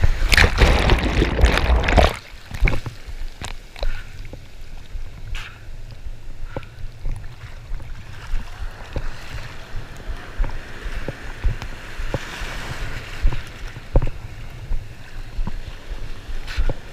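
Beach surf washing over and around a hand-held GoPro at the water's surface. A loud rush of churning water for the first two seconds as a wave breaks over the camera, then a lower swirl of foamy water with many small splashes and knocks against the camera.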